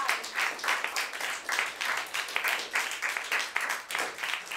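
Small audience applauding, many hands clapping steadily.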